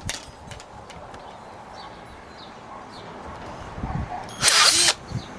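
Power drill fitted with a wire stripper-twister bit running in one short burst of about half a second near the end, stripping and twisting two wires together. Before it there are a few faint handling clicks.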